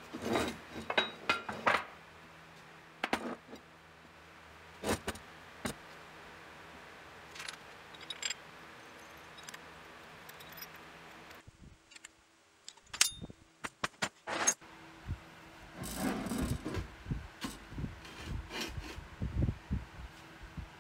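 Scattered clinks, knocks and scrapes of steel parts being handled on a steel workbench: a steel mounting plate, bolts and nuts being fitted to the base of an anvil. A faint steady hum runs underneath.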